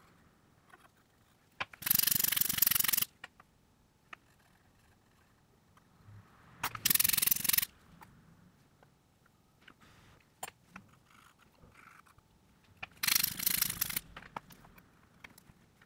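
Three bursts of rubbing noise, each about a second long, with light clicks and taps between them.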